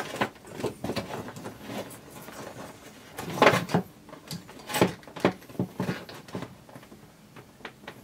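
Handling noises from working on the wiring of a burned power point inside a wooden cabinet: scattered clicks, knocks and rattles of hands and tools, with two louder knocks about three and a half and five seconds in.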